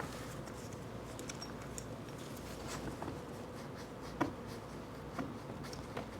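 Light scrapes and a few faint clicks of a hand tool working on small metal lathe parts, over a low steady hum.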